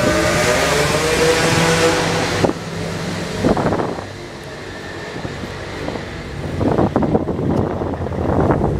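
Motor scooter engine revving hard, its pitch rising and falling, for the first couple of seconds. Then quieter engine running with a few sharp cracks, and a car engine growing louder near the end.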